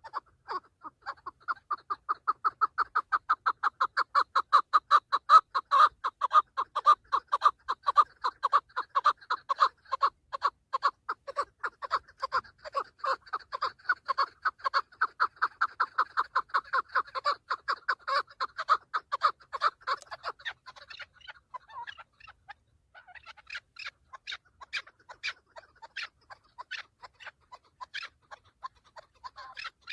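Chukar partridge calling: a long run of rapid, repeated chuk notes, about four or five a second, that breaks off about twenty seconds in. Slower, more scattered calls follow.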